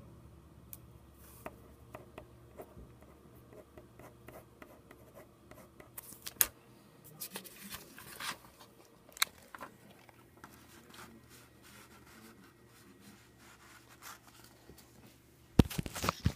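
A faint steady low hum with scattered light clicks and scratching. Near the end comes a short cluster of loud knocks and rubbing as the camera is picked up and swung around.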